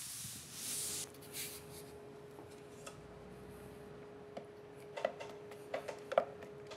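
Faint handling sounds of water-based paint being poured into a plastic roller tray, then small clicks and taps as a paint roller is worked in the tray from about five seconds in. A short hiss at the very start and a faint steady hum run under it.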